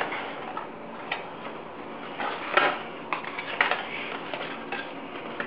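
Hands rummaging in a cardboard product box and handling the plastic parts inside: irregular rustling and scraping with light clicks and taps.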